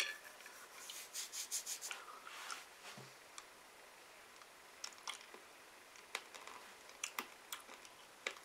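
Faint chewing with scattered wet mouth clicks: a person eating a small sour sweet.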